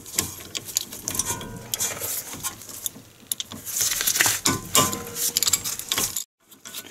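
Socket ratchet clicking in repeated runs as it backs out a rusty brake caliper bolt.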